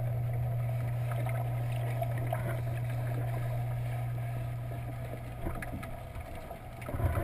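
Steady low machinery hum heard underwater in a boat's seawater holding tank, muffled, with a few faint clicks. The hum fades about six seconds in.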